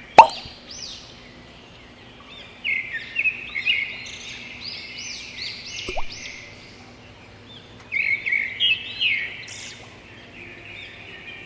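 Small birds chirping in quick, repeated arching calls. A single sharp knock just after the start is the loudest sound, and a fainter click comes about six seconds in.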